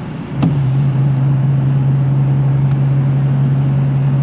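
Inside a moving car, a click about half a second in, then a steady low drone comes in suddenly and holds at one pitch over the road noise.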